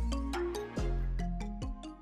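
Background music: a melody of separate struck notes over deep bass notes, growing quieter toward the end.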